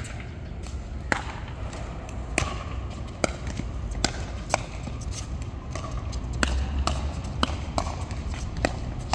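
Pickleball rally: sharp pops of paddles striking the plastic ball and of the ball bouncing on the hard court, about a dozen at an irregular pace, over a low background rumble.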